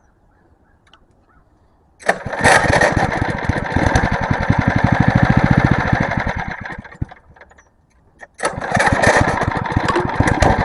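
Small single-cylinder engine catching about two seconds in and running with a rapid, even beat, then dying away after about four seconds; it catches again about eight seconds in and keeps running. The engine is struggling to stay running.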